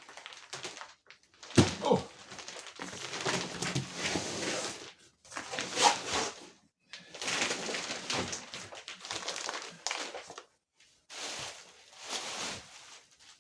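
Plastic wrapping on a rolled foam mattress being pulled, handled and crinkled in repeated bursts of rustling, with one dull thump about one and a half seconds in.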